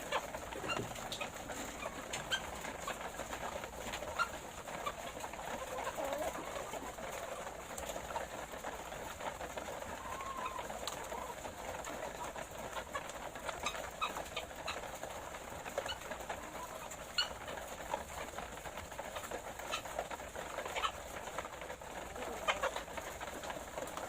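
A flock of laying hens making low, continuous murmuring clucks, with scattered sharp clicks.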